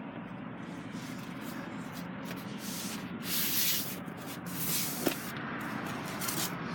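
Rustling and rubbing noises, swelling in two bursts of hiss about three and four and a half seconds in, with a sharp click just after the second, over a steady low hum.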